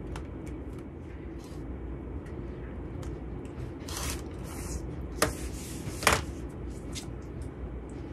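Rotary cutter slicing through sewn cotton fabric strips against an acrylic ruler on a cutting mat: a short crisp rolling cut about four seconds in, then two sharp clacks as the ruler and cutter are moved and set down, over a low steady hum.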